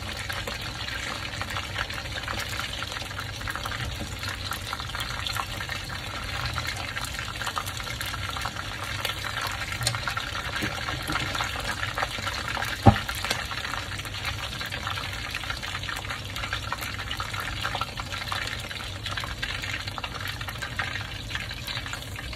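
Chicken wings deep-frying in hot oil in a wok: a steady, dense sizzle and crackle of bubbling oil, with one sharp knock about thirteen seconds in.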